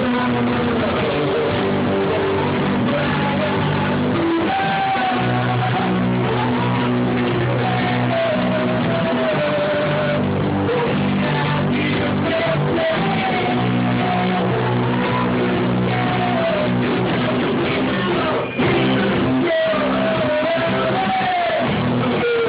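A three-piece band playing rock music led by guitar, a melody line bending over steady low notes.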